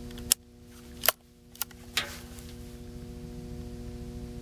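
Four sharp metallic clicks, the two loudest about a third of a second and a second in: the single-shot H&R break-action gun with its .357 barrel being handled, its action snapped shut and its hammer cocked ready to fire.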